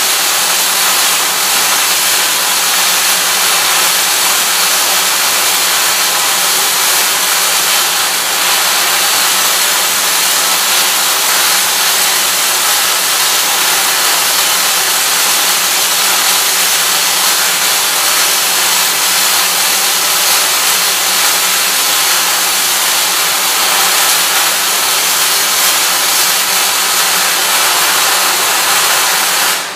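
Electric arc welding a seam around an automotive torque converter turning in a converter welding machine: a loud, steady hiss of the arc that cuts off at the very end as the weld is finished.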